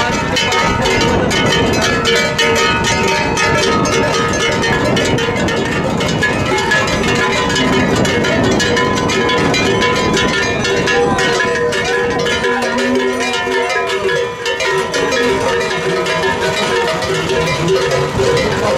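Continuous rhythmic metallic clanking and ringing mixed with crowd voices and music, with a few wavering calls about two-thirds of the way through.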